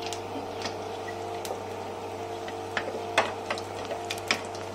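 Whole spices sizzling softly in hot ghee and oil while being stirred, with a steady hum underneath and a few light clicks of a wooden spatula against the pot.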